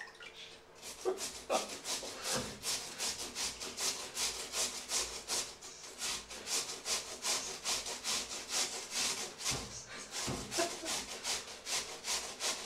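Peeled potatoes being grated on a flat stainless-steel hand grater over a metal bowl: rhythmic rasping strokes, about three to four a second, starting about a second in.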